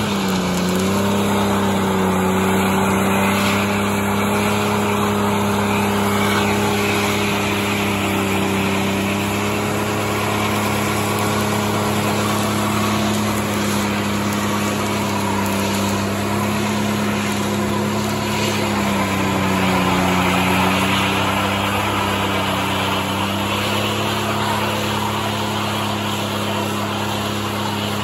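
Ford Ranger pickup's engine held at high revs, near redline, in a burnout with the rear tyres spinning in place. The pitch holds steady, dipping briefly about two-thirds of the way through before coming back up.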